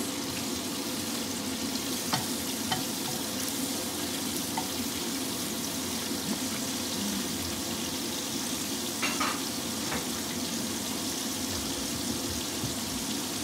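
Pork and cherry tomatoes sizzling steadily in a stainless-steel frying pan as they are stirred with a wooden spatula. A few light knocks of the spatula against the pan are heard.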